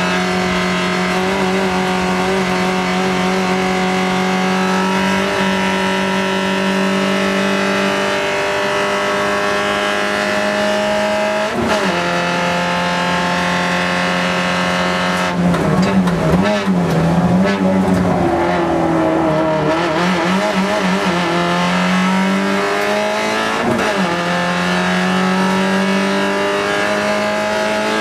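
Fiat Seicento kit car's four-cylinder engine pulling hard under full throttle, heard from inside the cabin: the pitch climbs steadily through each gear and drops sharply at two upshifts, about twelve and twenty-four seconds in. In between, about halfway through, the revs drop and waver unevenly for several seconds through braking and downshifts before climbing again.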